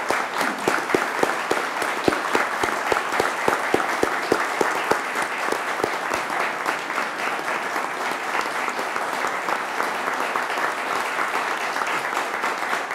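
A roomful of people applauding. For the first several seconds loud, separate claps from someone clapping right at the podium microphone stand out over the crowd, then the applause goes on as an even spread of clapping.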